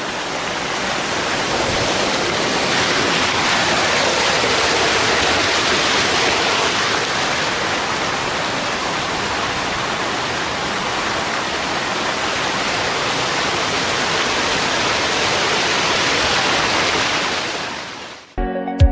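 Waterfall rushing: a steady, dense roar of falling water that fades out near the end as music begins.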